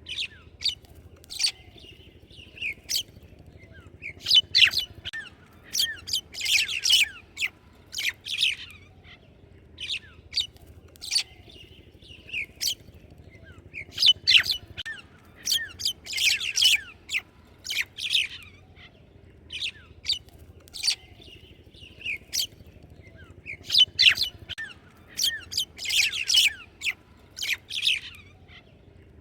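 Small birds chirping: many short, sharp, high chirps coming in bursts, with the same busy pattern recurring about every ten seconds over a faint steady low background noise.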